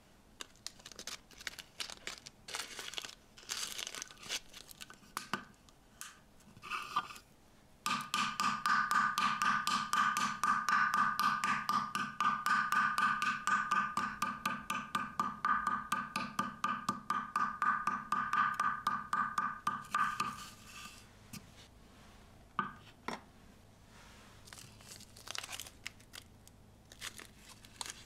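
Small plastic zip-lock bag crinkling as it is handled and opened, then a tiny metal spoon rubbed and pressed fast and evenly over biscuits inside the bag on a wooden board, crushing them to crumbs. The crushing runs for about twelve seconds, at several strokes a second, and stops suddenly; after it come a few more rustles of the bag.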